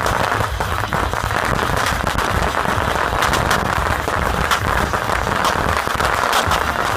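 Yanshui beehive fireworks tower firing: a dense, unbroken crackle of bottle rockets with many sharp pops.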